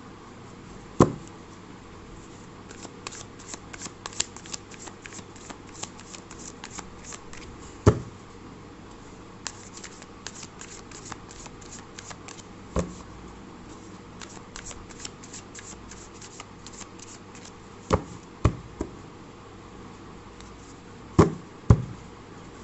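A deck of tarot cards shuffled by hand: many quick, soft flicks of card against card, with about seven sharper knocks spread through it.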